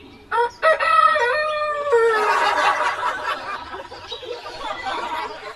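A rooster crowing once, a drawn-out call in several joined parts that falls in pitch at the end. After it comes a noisier, less clear stretch.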